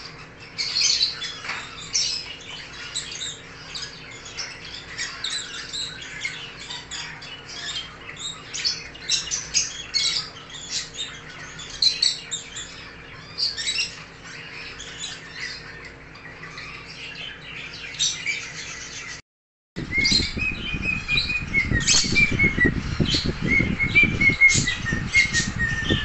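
Lutino cockatiel chirping rapidly with short high calls, then, after a brief break, whistling a run of clear notes that step up and down, over a loud low rumble.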